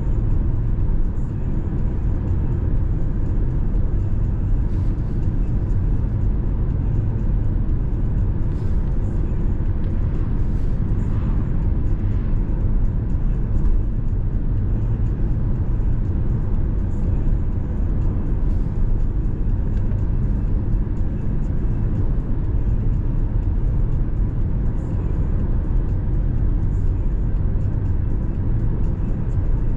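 Steady low rumble of tyres and engine from a car being driven, holding even throughout.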